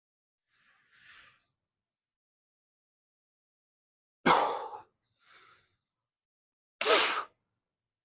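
A person blowing out breath hard in short, forceful bursts while straining through a weightlifting set: a faint puff about a second in, then two loud, sharp exhalations a few seconds apart with a softer one between them.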